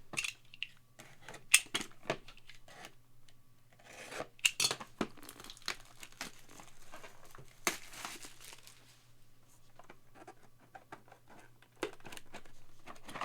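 Paper or plastic packaging being torn and crinkled by hand, with scattered sharp clicks and taps, as a trading card is unwrapped.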